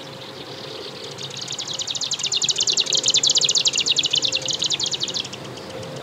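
Japanese swamp warbler (marsh grassbird) giving its display song: a rapid run of quick notes that grows louder, then stops after about four seconds.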